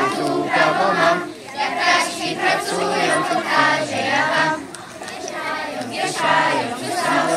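A large group of young children singing a song together in chorus, in phrases with short breaks between them.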